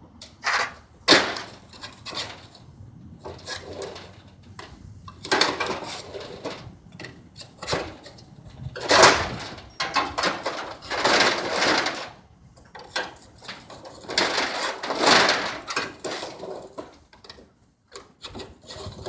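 Irregular bursts of scraping and clattering from hands-on repair work on a door spring assembly, with short pauses between.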